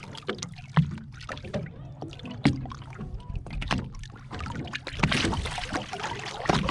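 Scattered knocks and handling noise aboard a small fishing boat, over a low steady hum, with a denser wash of noise about five seconds in.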